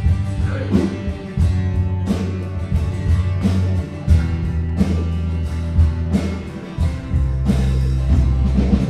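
Instrumental passage of a rock worship song: electric bass guitar holding long low notes under drums keeping a steady beat, with guitar above.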